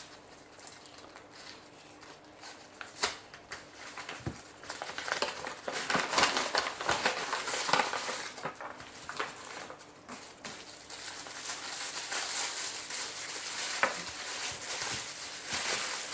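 Hands unwrapping a small packaged incense burner: a few light clicks and taps at first, then steady crinkly rustling of the wrapping with small knocks from about five seconds in.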